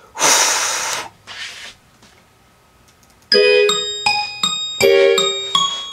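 A loud burst of hissing noise, then a fainter one, then after a short pause a keyboard instrumental beat starts about three seconds in, with struck piano-like chords and bell-like high notes over a low thump.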